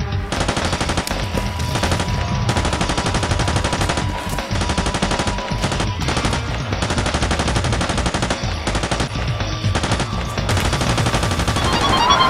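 Rapid automatic rifle fire in long bursts broken by a few brief pauses. Music comes in near the end.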